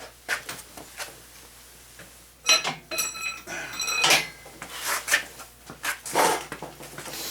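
Steel hand tools (hammer and socket) clanking against an engine's rod caps and block: a series of sharp metal clicks and knocks, with one ringing metallic clank about two and a half seconds in.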